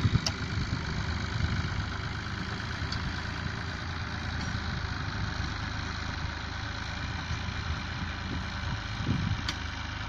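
Fiat 480 tractor's three-cylinder diesel engine running steadily under load while pulling a plough through the soil.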